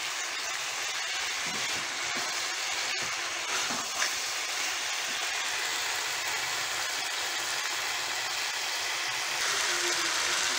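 Mixed vegetables sizzling steadily in hot oil in a kadai while being stir-fried, with a spatula stirring through them now and then. The sizzle grows a little louder near the end.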